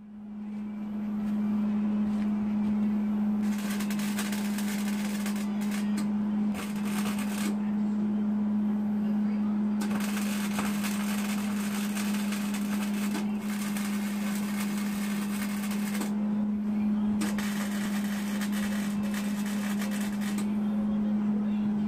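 Hobart MIG welder welding steel on a Jeep Cherokee XJ's floor pan: four bursts of crackling arc, the longest about six seconds, over a steady low hum.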